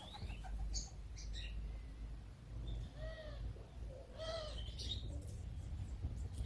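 Short animal calls: two arched, pitched calls about a second apart near the middle, with a few short high chirps before and after, over a low rumbling background noise.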